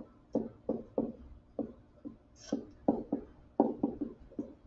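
Stylus writing on a touchscreen or pen tablet: a run of short taps and strokes, about two or three a second, with a brief higher scratch midway.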